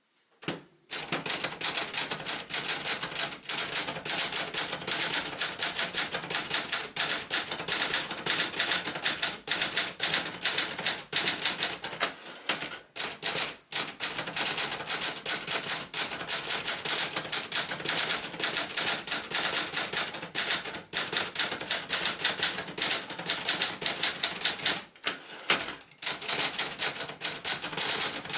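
1977 Adler J2 portable typewriter being typed on: a fast, continuous run of key strikes, broken by short pauses about halfway through and again near the end.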